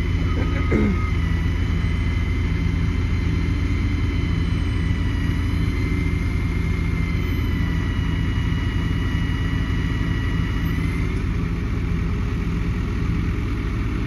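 Bucket truck's engine running steadily at idle to power the boom, with a faint, slightly wavering high whine over the low drone.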